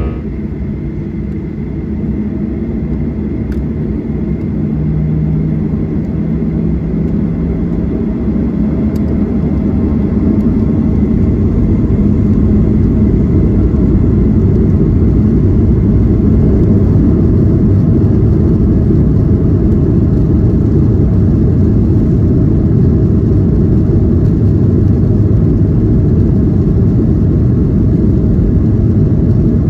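Airliner takeoff heard from inside the cabin: engine noise and the rumble of the takeoff roll grow louder over the first ten seconds or so, then hold steady and loud.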